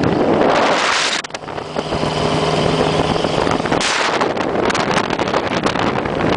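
Dune buggy running at speed with heavy wind buffeting on the microphone. For about two seconds near the middle the wind eases and a steady engine hum comes through, then the buffeting returns with rattling clicks.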